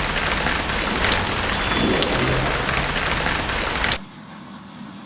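Heavy rain with a low rumble of thunder beneath it, which cuts off abruptly about four seconds in, leaving only a faint hiss.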